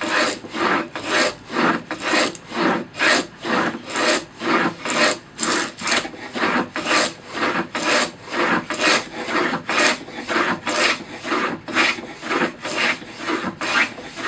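Stanley No. 48 tongue-and-groove plane cutting a groove in a board edge in quick repeated strokes, a scraping swish about two to three times a second. The cut is probably going against the grain.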